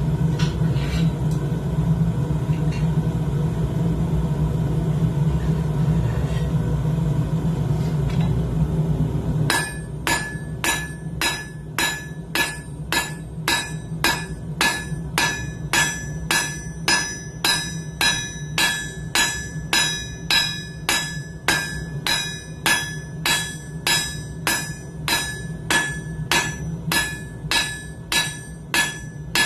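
A steady low roar for about the first nine seconds, then a hand hammer striking hot coil-spring steel on an anvil, about two blows a second, each blow ringing, as the bar is squared up.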